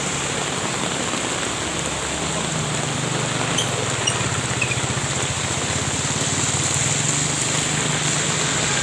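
Steady rain falling, an even hiss, with a low steady hum underneath and a few faint ticks a little before the middle.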